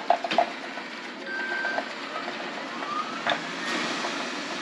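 Lefant M210B robot vacuum running with a steady hum. There are a few clicks early on, a short electronic tone about a second in, and a rising whine around the middle and again near the end.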